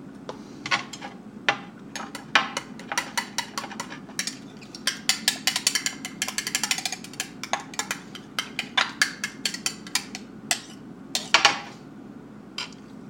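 A utensil clinking and scraping against a bowl while stirring sriracha mayonnaise, in quick irregular clicks that come fastest about five to seven seconds in.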